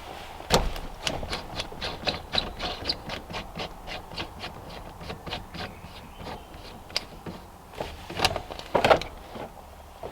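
Light, evenly spaced clicks, about three a second for several seconds, then a few louder knocks near the end, from hand work on a car's center console trim.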